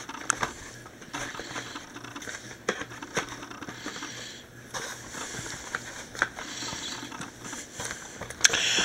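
Hands handling a DVD box set: thin plastic disc cases clicking and tapping, with rustling of the cardboard slipcover and a louder sliding scrape near the end.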